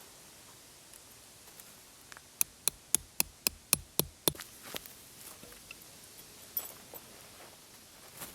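A run of about eight quick, sharp knocks, evenly spaced at about four a second, a couple of seconds in, with a few weaker clicks after.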